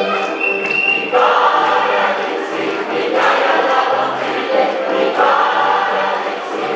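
Large mixed choir singing an African-style song, coming in about a second in and repeating a phrase roughly every two seconds, over a walking double-bass line.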